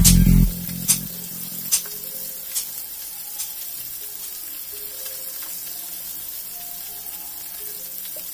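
Fish steaks frying in shallow oil in a pan: a steady sizzle, with a few sharp pops in the first few seconds.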